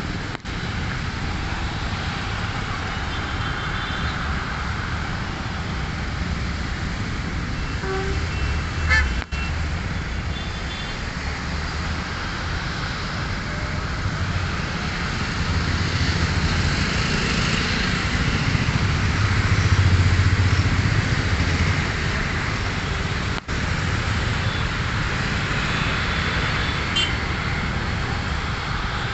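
Distant jet airliner engines swelling louder to a peak and easing off again as the plane comes in to land, over a steady bed of road traffic with a few short horn toots.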